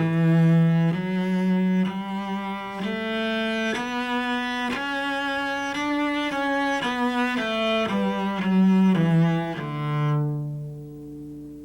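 Cello playing a scale in grand détaché: each note is a separate whole-bow stroke, about one note a second. The scale climbs about an octave and comes back down, and the last note rings and fades near the end.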